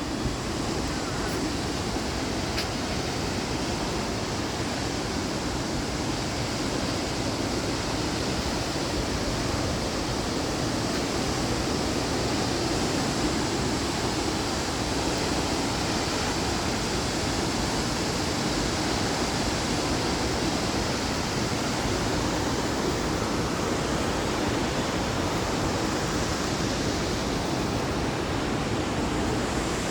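Waterfall: falling water rushing steadily, a constant even hiss-and-rumble without a break.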